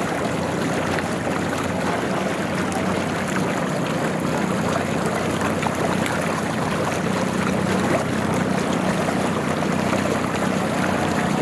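Floodwater gushing through a breach in a small rice-field dike: a steady churning rush of water, with a low steady hum underneath.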